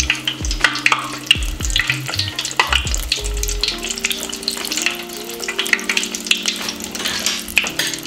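Breaded mashed-potato balls deep-frying in hot oil: a steady bubbling sizzle with many small crackles and pops.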